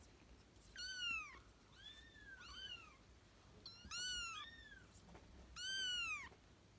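Kittens mewing: a string of about six short, high-pitched mews, each rising then falling in pitch, some overlapping at different pitches.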